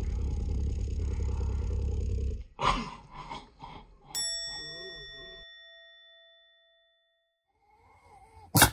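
Black Shiba Inu growling steadily and low for about two and a half seconds, then a few short snorts. This is his playful growl, a show of affection rather than anger. About four seconds in a single bell-like ding rings out and fades, followed by a loud short burst from the dog at the very end.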